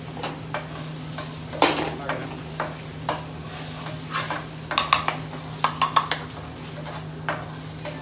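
A metal spoon scraping and clanking against a wok as onions and mushrooms are stirred and fried in butter over a gas burner, with a sizzle. There is a quick run of clanks a little past the middle, and a steady low hum underneath.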